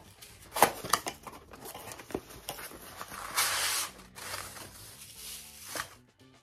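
Packaging handled by hand during unboxing: a few sharp clicks and taps, then plastic wrapping crinkling and tearing twice, about three and a half and four and a half seconds in.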